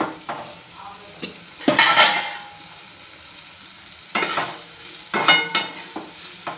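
Green chillies sizzling as they fry in mustard oil with masala, stirred with a steel spatula that scrapes the pan in several short, loud strokes, the first about two seconds in.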